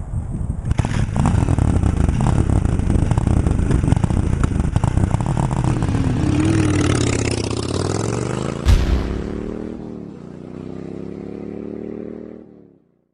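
Cruiser motorcycle engine revving and pulling away, its pitch rising, dropping once at a gear change and rising again as it accelerates off, with a sharp knock about eight and a half seconds in. The sound cuts off abruptly near the end.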